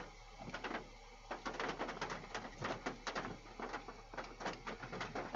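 Hailstones pelting the storm chasers' vehicle in a quick, irregular patter of clicks and taps. It is sparse at first and grows dense after about a second and a half.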